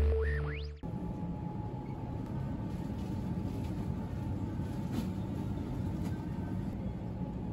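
A short electronic jingle with sweeping tones cuts off under a second in. After it comes the steady low rumble and hum of a supermarket's refrigerated dairy cases, with a faint steady tone over it.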